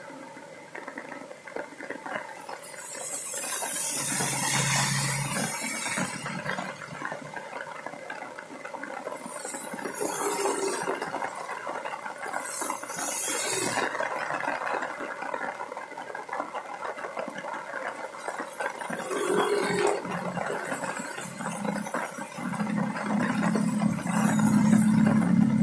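Rain falling on a wet paved street, with vehicles passing on the wet road about four times, each a swish of tyres on water that swells and fades. A low droning hum builds near the end.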